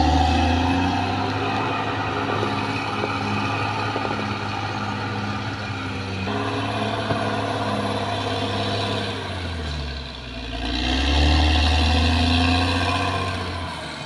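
Caterpillar D6R XL bulldozer's diesel engine running steadily. The engine eases off about ten seconds in, then comes back up.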